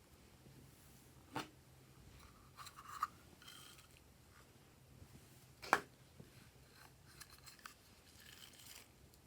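Glossy slime being worked by hand, giving a few sharp sticky pops and small crackles. The loudest pop comes a little over halfway through.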